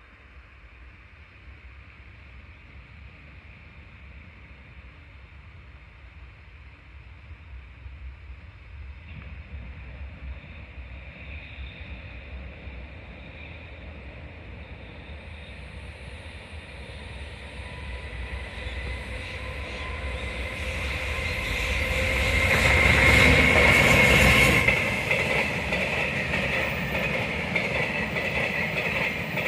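Freight train hauled by an EH500 electric locomotive approaching and growing louder for about twenty seconds. The locomotive passes loudest with a tone in its sound about 23 s in, and the noise drops suddenly as it goes by. The wagons then roll past steadily.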